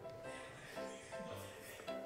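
Quiet background music: soft, steady instrumental notes.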